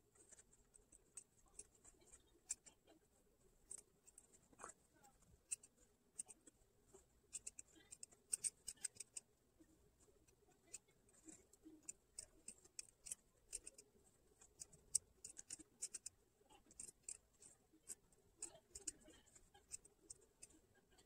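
Small scissors snipping notches into the curved seam allowance of a sewn fabric doll, clipping the curves before it is turned right side out. Many faint, quick snips at an uneven pace, with a short pause about ten seconds in.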